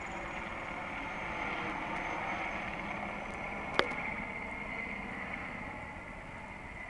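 Military helicopter flying aerobatic manoeuvres: steady rotor and engine noise with a high whine, easing off slightly near the end. A single sharp click a little before four seconds in.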